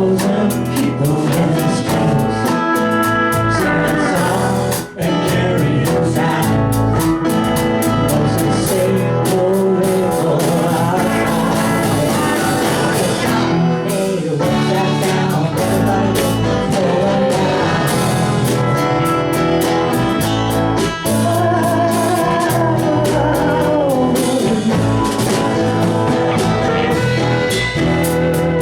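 Live band playing a blues-rock song: a singer's voice over guitar and a drum kit.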